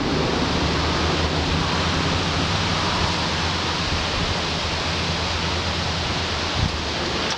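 Small bulldozer's diesel engine idling steadily, with heavy wind noise on the microphone over it.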